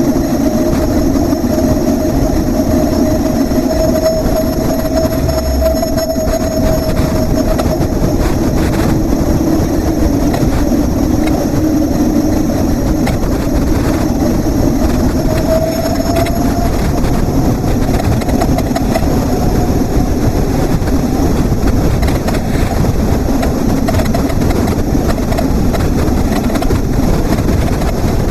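Wind buffeting the microphone of a bike-mounted action camera while riding in gusty weather, over steady road rumble and a low hum that rises slightly a little past halfway.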